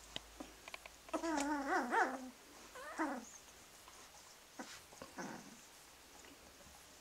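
Two-week-old Groenendael puppies whimpering while nursing: one wavering squeal about a second in, then two shorter falling whines, with faint clicks between.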